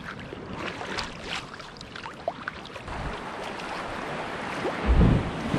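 Water splashing around a sea kayak on the ocean: a run of small splashes and drips, then a rising rush of wind and surf with a loud low buffet near the end.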